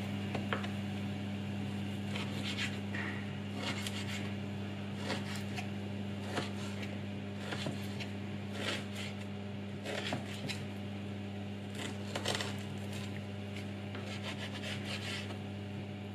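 Kitchen knife slicing smoked pork back fat into small pieces on a wooden cutting board: irregular short knocks of the blade striking the board, over a steady low hum.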